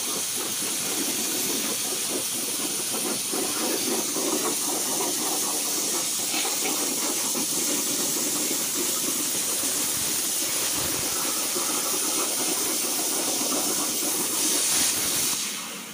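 Portable CNC plasma cutter's torch cutting steel plate: a steady hiss of the plasma arc and its air jet, with a crackle underneath.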